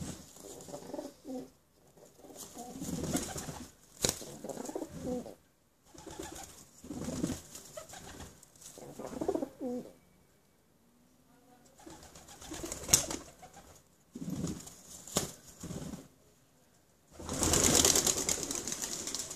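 Feral pigeons cooing and scuffling on a windowsill, with a few sharp taps. Near the end comes a loud clatter of wings lasting about two seconds as several pigeons take off together.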